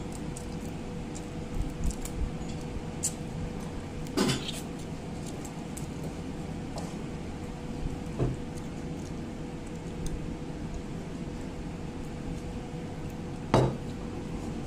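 Eating by hand from a ceramic plate: a few short clicks and taps of fingers and food against the plate, the sharpest one near the end, over a steady low hum.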